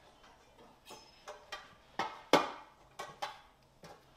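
Kitchen utensils and dishes being handled: about eight irregular knocks and clinks, the loudest about two and a half seconds in.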